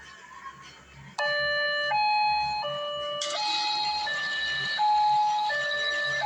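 A small electronic siren switches on suddenly about a second in and sounds a loud hi-lo pattern, stepping between a low and a high steady tone about every three-quarters of a second.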